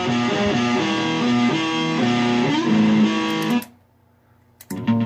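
Guitar music playing through a Peavey amplifier, a line of held notes stepping up and down. It cuts off about three and a half seconds in, and a different tune starts about a second later as the track is changed.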